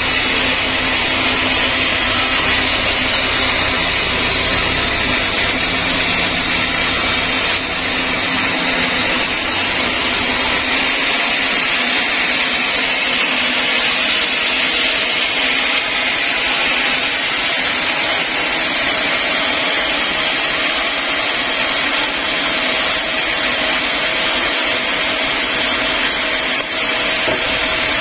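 Band sawmill running, its blade sawing lengthwise through a large log with a steady whining machine noise. About ten seconds in, the low rumble drops away.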